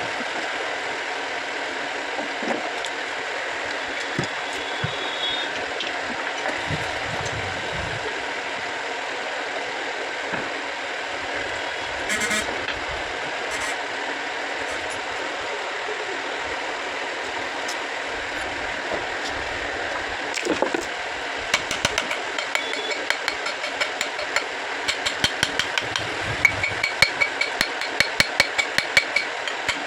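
Electric water pump motor running with an abnormal noise inside it: a steady whirring, joined about two-thirds of the way through by rapid clicking and rattling that keeps on.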